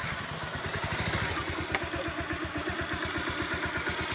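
Vehicle engine running steadily at low revs, its firing pulses an even, rapid beat.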